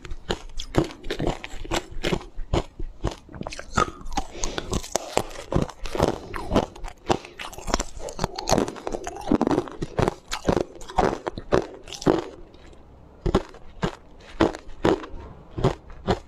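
Coloured ice cubes being bitten and crunched between the teeth: a fast, irregular run of sharp crunches mixed with chewing, with a brief lull about three-quarters of the way in.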